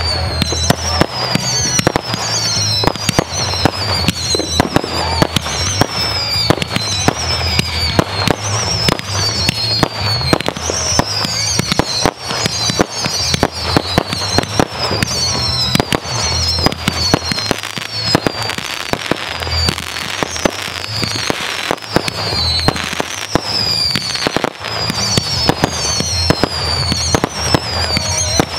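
Aerial firework shells bursting in quick succession, a dense run of sharp bangs and crackles. Behind them a high tone falling in pitch repeats a little more than once a second.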